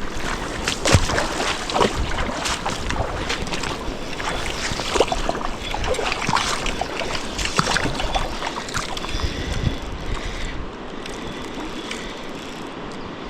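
River water rushing and splashing over rocks, a steady broad wash with many small splashes, easing a little about ten seconds in.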